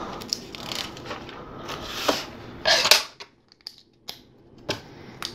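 LEGO plastic pieces being handled on a tabletop: scattered clicks and rattles of bricks and plates, loudest about three seconds in.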